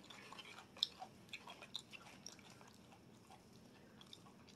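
Faint chewing: a person's mouth working on food, with soft, scattered wet clicks that are more frequent in the first half.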